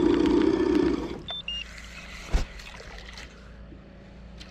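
Boat's electric trolling motor running hard, a low whine with rapid clicking, then cutting off about a second in. A short electronic beep follows, and a single sharp knock comes about two and a half seconds in.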